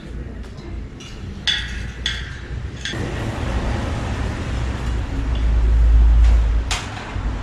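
A few sharp metallic clinks of a spanner on a bicycle wheel hub as the axle nuts are worked loose. Under them, from about three seconds in, a loud low rumble swells, peaks just before the end, then drops.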